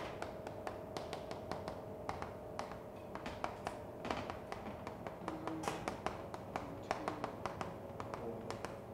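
Chalk on a blackboard as words are written: a quick, irregular run of light taps and short scrapes.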